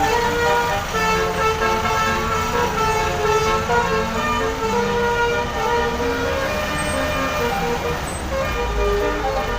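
Basuri telolet multi-tone bus horn playing a melody of held notes that step from one pitch to the next, over the low rumble of the engine and traffic. The rumble gets louder near the end.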